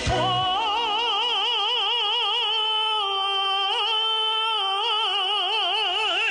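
A singer holds one long, high note with a wide vibrato, after a short slide up into it.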